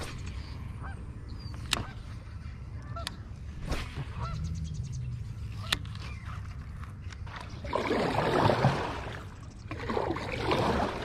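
Geese honking in two loud flurries near the end, over a steady low rumble with a few sharp clicks.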